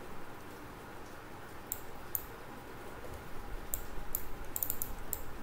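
Computer mouse clicking a handful of times at irregular intervals, with a quick run of clicks near the end, over faint steady room noise.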